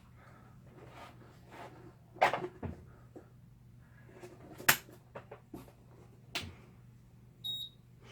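Scattered clicks and knocks of tools and parts handled on a workbench, the sharpest a click a little past the middle. A short, high electronic beep sounds near the end.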